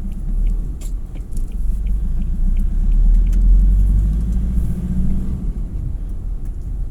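Low, steady rumble of a car in motion, with faint scattered clicks and rattles; it swells in the middle.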